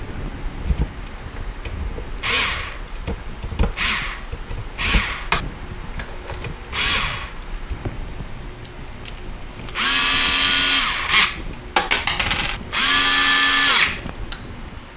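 Small cordless drill-driver running in two short bursts of about a second each, driving screws to fasten the motor housing to the aluminium extrusion frame, with a quick series of clicks between the runs. Several brief scraping noises come earlier.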